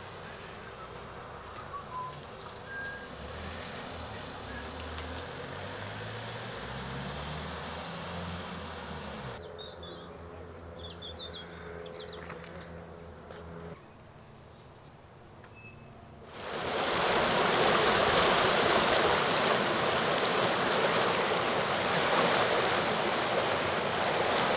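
A vehicle engine running and rising in pitch as it pulls through floodwater, then a quieter pause with a low hum. About two-thirds of the way in, a sudden, loud, steady rush of water-like noise starts and keeps on.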